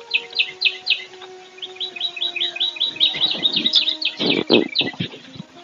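A small bird chirping rapidly: a long run of short, high, falling chirps that speeds up partway through. Near the end come a few short rushing noises, the loudest about four and a half seconds in.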